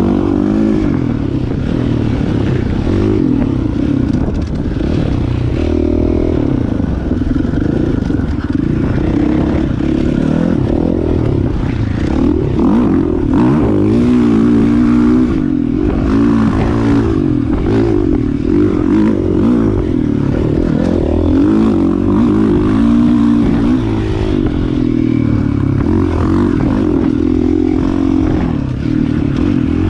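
Dirt bike engine running under load, its pitch rising and falling again and again as the throttle is worked over the trail.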